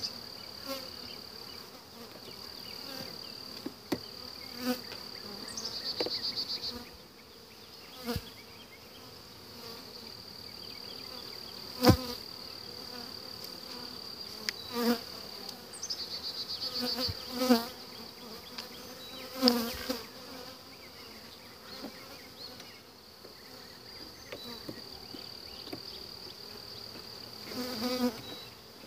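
Honeybees buzzing around an opened hive. Single bees buzz briefly past the microphone several times over a steady high tone. Sharp clicks and knocks come as hive frames are handled, the loudest about twelve seconds in.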